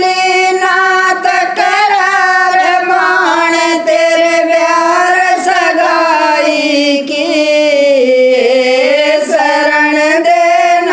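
Women singing a Haryanvi jakdi folk song together in one melody, drawing out long held notes.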